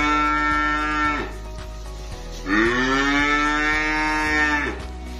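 A calf mooing: one long call that ends about a second in, then a second long call from about two and a half seconds to nearly five seconds. Each call rises in pitch at the start and drops off at the end.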